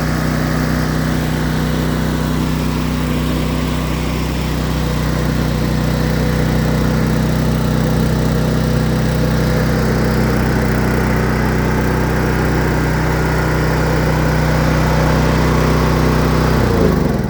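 Honda EZ2500 portable generator engine running steadily on its first run after a refurbishment. Near the end it is shut off and winds down, its pitch falling as it spins to a stop.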